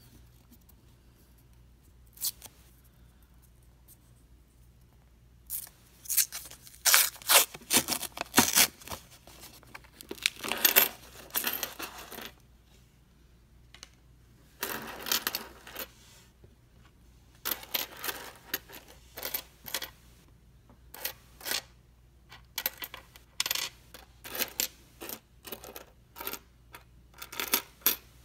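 Pennies from a paper coin roll clattering onto a wooden tabletop, then clinking one against another as they are pushed apart and spread out by hand. The first few seconds are almost quiet; the clatter starts about five seconds in and comes in repeated bursts of many small metallic clicks.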